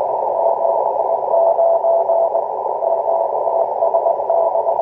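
A Morse code (CW) signal on an amateur radio receiver: a single tone of about 700 Hz keyed on and off in dots and dashes, heard over steady static hiss narrowed by the receiver's CW filter, with a short break between groups about halfway through.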